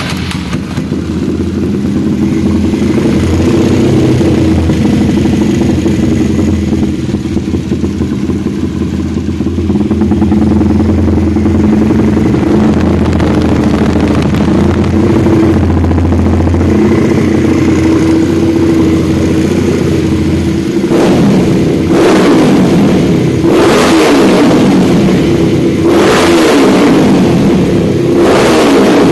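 Single-cylinder air-cooled four-stroke motorcycle engine idling steadily, then revved with about four throttle blips over the last eight seconds. Its valve clearance has still to be adjusted.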